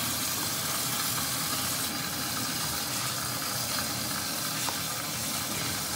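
A steady, even hiss, with a faint click or two.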